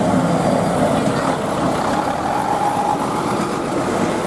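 Bus engine running steadily, with road noise.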